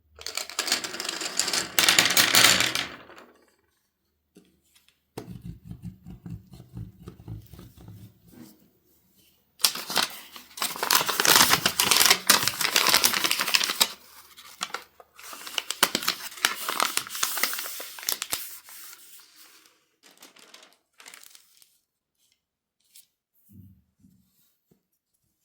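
Three loud bursts of rustling, crinkling noise, each a few seconds long, with a softer, lower stretch of handling noise between the first two.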